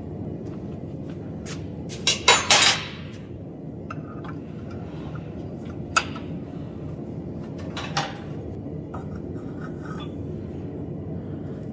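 Steel clanking at a steel bench vise as a red-hot square bar is clamped in its jaws and a twisting wrench is fitted over it. There is a quick cluster of three loud clanks about two seconds in, then single sharper knocks near six and eight seconds, over a steady low background noise.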